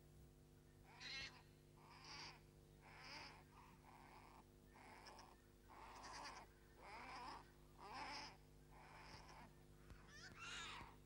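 Newborn brown bear cubs in a straw den crying: faint, short squealing calls repeated about once a second, each bending up and down in pitch.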